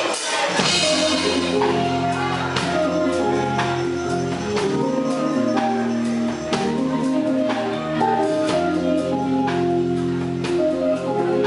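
Live funk-jazz band playing, with electric guitar, bass guitar, keyboards and drum kit; the deep bass line and held chords come in about half a second in, over regular drum strikes.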